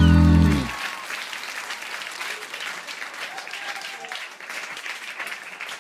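Music ends on a held chord under a second in, then an audience applauds, a steady patter of many hands clapping.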